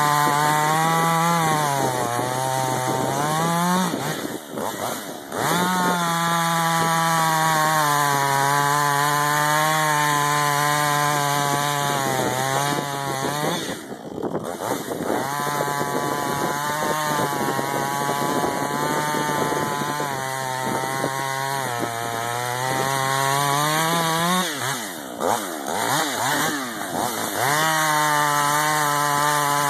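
Husqvarna 562 XP two-stroke chainsaw with a 20-inch bar cutting into a dead ash trunk at full throttle. Its pitch sags as the chain loads up in the cut and climbs again as it frees, and the engine eases off briefly about four seconds in and again near twenty-five seconds.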